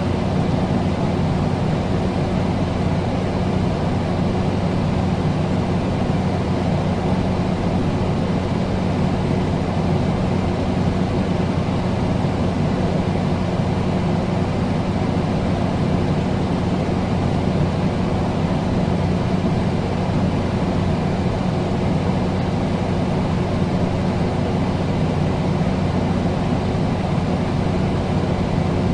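Air conditioner running steadily: an even rush of air over a constant low hum, unchanging throughout.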